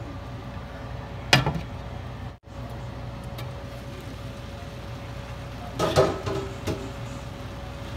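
Steady low hum with a faint hiss from the pan of diced pork lung and vegetables cooking. A sharp knock about a second and a half in, and a short clatter around six seconds.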